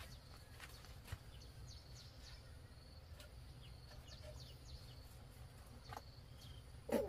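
Light clicks and knocks of a bamboo tube and pole being handled, with a sharper knock about a second in and a louder, hollow-sounding knock near the end, over a faint low hum.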